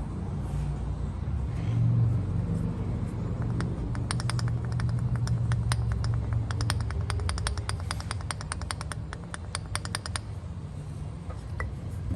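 2013 Ram 1500's 5.7 L Hemi V8 running with a rapid, even ticking that starts a few seconds in and stops near the end. The truck shows no codes or misfire; the owner found nothing wrong in the heads, lifters or camshaft and is chasing the tick into the pistons.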